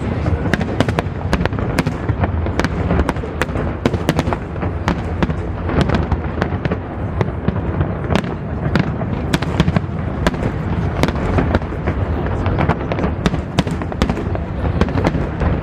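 Aerial fireworks display: a dense, unbroken barrage of sharp crackling bursts, many a second, over a steady low rumble of booms.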